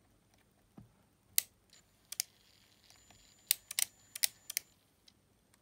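Sharp little clicks from an opened Sony WM-EX900 cassette Walkman being handled and its button pressed, the tape mechanism clicking as it works with the tape detection switch shorted out. About seven clicks, scattered, most of them in the second half.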